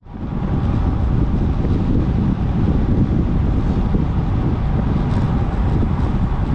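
Wind buffeting the microphone of a camera riding along on a moving bicycle: a steady, loud low rumble that fades in at the start.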